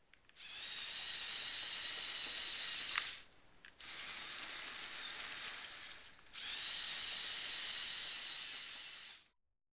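Lego Power Functions motors and gear train of a tracked chassis whirring as it drives, with gear clatter in the whirr. There is a sharp click about three seconds in, then the whirr drops off briefly. It dips again about six seconds in and stops near the end.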